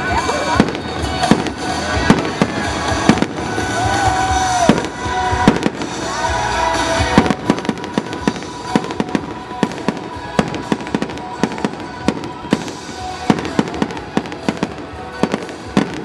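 Aerial fireworks shells bursting in irregular bangs, coming thicker and faster from about seven seconds in.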